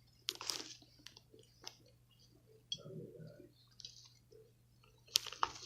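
Scattered small plastic clicks and handling noises from a battery LED tap light being worked by hand, its push switch pressed while it misbehaves. There is a soft rustle about three seconds in and a quick cluster of sharper clicks near the end, over a faint steady hum.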